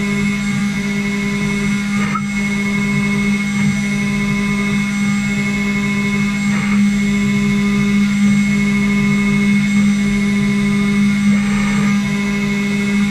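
CNC router spindle running steadily while machining, a constant hum with a high whine above it. A tone in it pulses on and off at a regular pace as the cutter works through the part.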